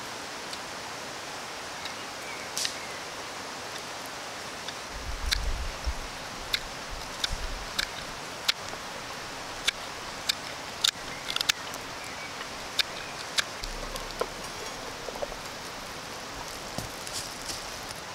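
Spoon knife carving out the inside of a wooden cup: irregular short, sharp cutting clicks over a steady hiss, with a few low thumps about five to eight seconds in.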